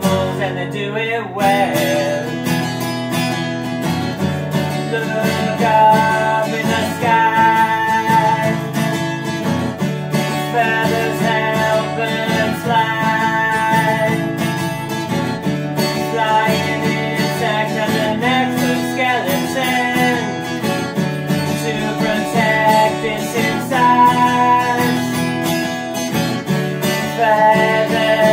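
Acoustic guitar strummed in a steady rhythm, backing a man singing a children's song.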